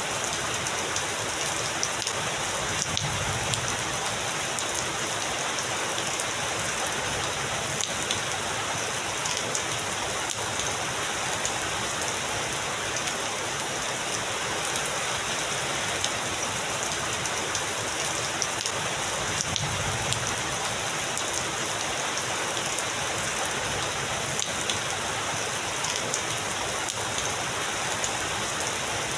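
Heavy rain falling steadily, an even hiss with scattered sharp drop hits.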